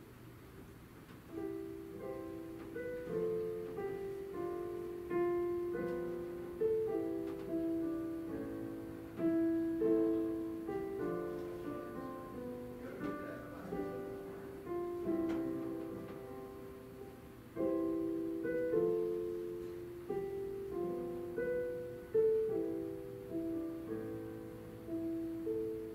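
Piano playing a slow, gentle piece, a melody over chords, starting about a second in.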